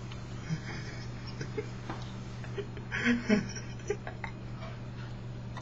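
Steady low hum on a webcam microphone, with a few soft clicks and a short burst of a person's voice about three seconds in.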